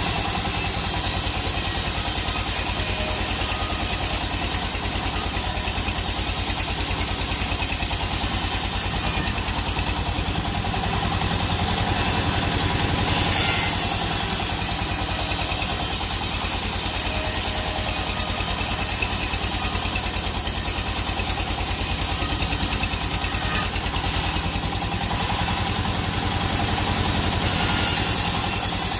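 Sawmill engine running steadily throughout. A high hiss on top of it cuts out twice for a few seconds.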